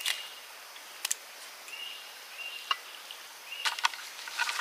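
Outdoor ambience: a faint steady hiss with a few light clicks or knocks, and several short, high calls, each held at one even pitch.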